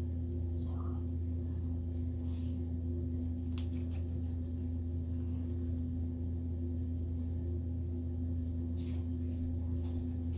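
Steady low background hum with two fainter steady higher tones above it, unchanging throughout: the weird background noise she apologized for earlier. A couple of faint clicks come about a third of the way in and again near the end.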